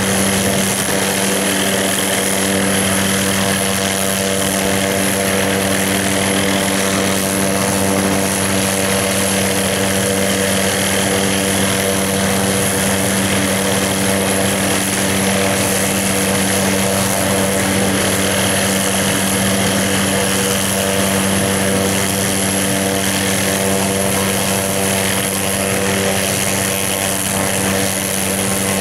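Hughes 500 helicopter's turboshaft engine and rotor running steadily: a constant turbine whine with a high whistle over a low drone.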